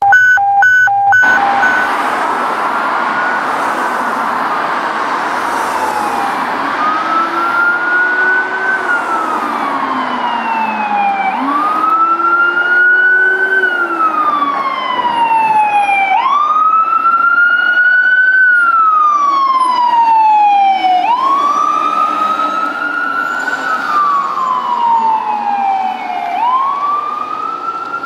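Fire engine's Whelen electronic siren in wail mode. It rises quickly and falls slowly, about once every five seconds. For several seconds near the middle, a much lower Whelen Howler tone follows the same rise and fall.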